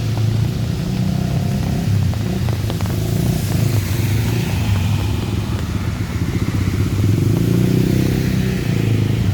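Motorcycle engines running in street traffic, with a steady hiss of heavy rain over them.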